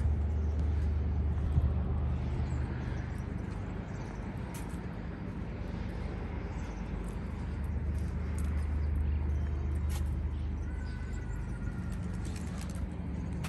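Wind rumbling on the microphone, swelling and easing, with a few light footsteps on the brick walkway.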